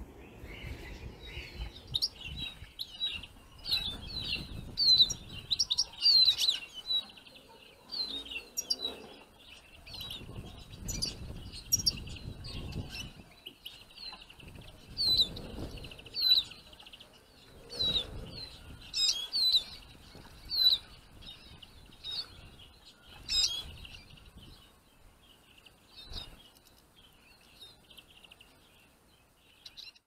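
Small finches twittering and chirping: rapid, high, bright notes, busiest in the first half and thinning out near the end, over an intermittent low rumble.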